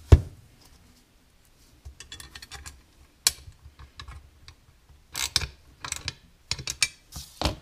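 Steel governor lever and shaft being handled and set into a steel angle-iron fixture, with a bolt being fitted: irregular metal clicks, clinks and light scrapes. A sharp knock comes right at the start, a single crisp click a little past three seconds, and a cluster of clicks in the last few seconds.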